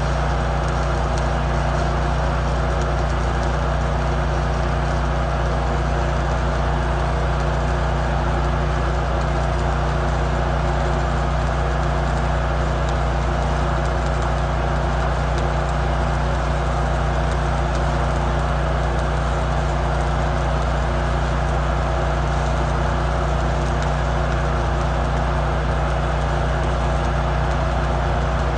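Stick welding: a steady crackling hiss from the arc over the even hum of a running engine, typical of an engine-driven welding machine. It runs unbroken with no change.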